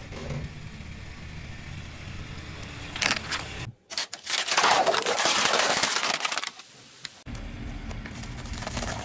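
A car tyre crushing plastic cups of drink: a loud noisy crunch lasting about two and a half seconds, starting about four seconds in. Before and after it there is a low steady rumble of the car, broken off by abrupt cuts.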